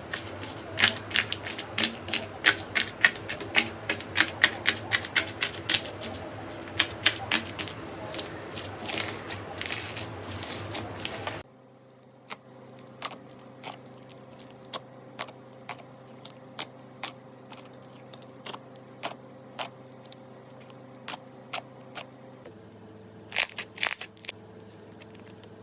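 Slime being pressed and worked, giving sharp clicking pops several times a second. After an abrupt cut about 11 seconds in, the pops come singly and more sparsely over a faint steady hum, with a few louder ones near the end.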